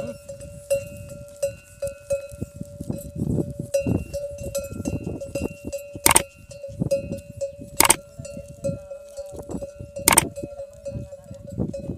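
Metal neck bell on a plough camel clanking again and again with its stride, one ringing note that keeps sounding. Three sharp knocks stand out, about six, eight and ten seconds in.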